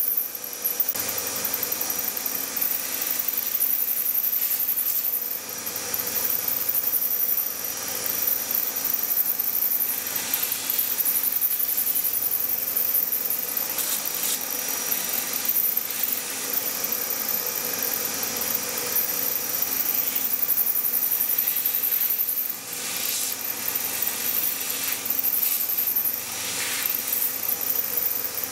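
Milling machine cutting a slot into a metal block with a 12 mm end mill: the steady rasping noise of the cutter in the cut over the spindle drive's hum and whine, with a couple of brief dips in loudness.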